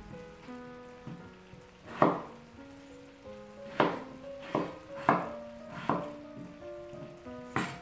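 Food sizzling as it fries in a pan, with about six sharp knocks from a utensil working in the pan.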